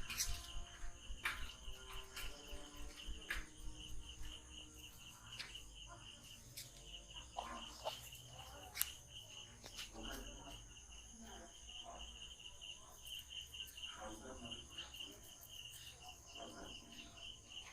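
Insects chirping in a steady, fast-pulsing trill, with scattered sharp clicks, the loudest about nine seconds in.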